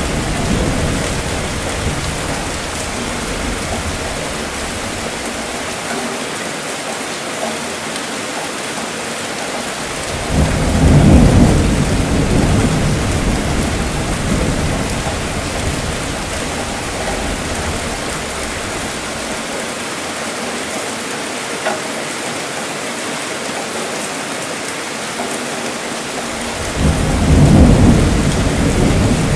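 Steady rainfall hissing throughout, with rumbling thunder: a roll dies away at the start, then two more rolls swell up about ten seconds in and again near the end, the loudest moments.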